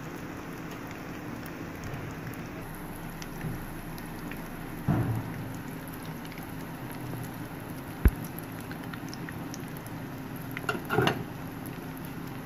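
Oil sizzling steadily as breaded, egg-dipped bread patties shallow-fry in a nonstick pan, with a few knocks and scrapes of a spatula against the pan as they are turned; the sharpest click comes about eight seconds in.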